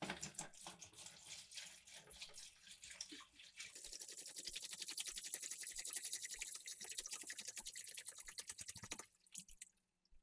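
Rapid hand scrubbing of the rusty metal oil lamp during rust removal, a quick run of back-and-forth strokes that gets faster and denser about four seconds in and stops abruptly near the end.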